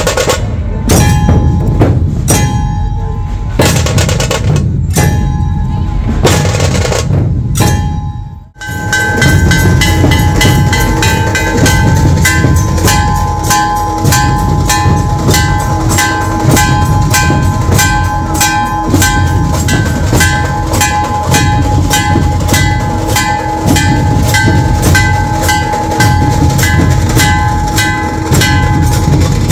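Dhol-tasha ensemble of large barrel dhols drumming in loud, massed rhythm, with a steady ringing tone over the beat. The drumming drops out briefly about eight seconds in, then resumes with a fast, even beat.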